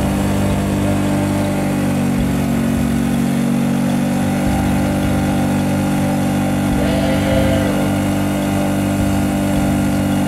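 Outboard motor driving a wooden boat, running steadily at an even speed.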